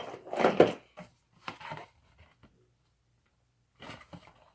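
Packaging being handled, rustling and knocking in a few short bursts. The loudest comes about half a second in, two smaller ones follow, and after a quiet stretch there is one more near the end.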